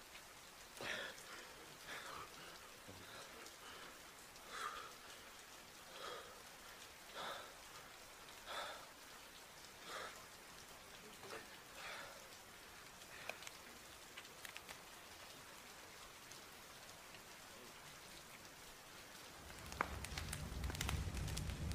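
Steady rain falling, with a man's heavy breathing rising and falling about once every second and a half over the first half. Then small sharp clicks of a flip phone's keys being pressed, and near the end a loud low hum sets in.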